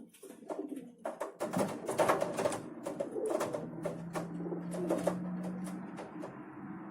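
Feral pigeons at a feeder: a run of sharp taps and scuffles with low cooing, growing busier after about a second and a half, with a steady low hum in the middle.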